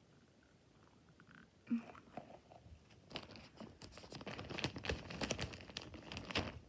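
Handling noise from stress toys: dense crackling and crinkling that starts about three seconds in and grows louder towards the end, after a mostly quiet start.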